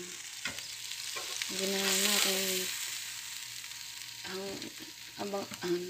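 Seasoned chicken breast sizzling on the hot ridged plate of an electric contact grill: a steady frying hiss that swells a little about two seconds in.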